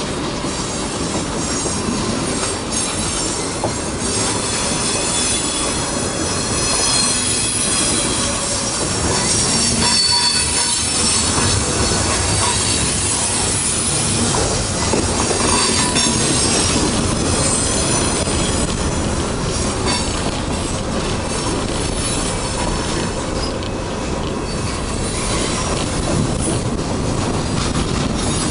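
Freight cars rolling past close by, steel wheels rumbling and clacking over the rail joints. High-pitched wheel squeal runs over the rumble, strongest through the middle stretch, from wheel flanges rubbing the rail on the curve.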